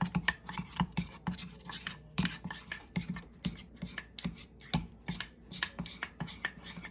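A utensil stirring melting chocolate in a cheese-melter pan, scraping and clicking irregularly against the pan a few times a second.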